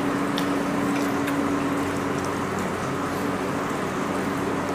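Steady background hum with a low droning tone, under a few faint clicks and soft squishes of fingers mixing rice and eating.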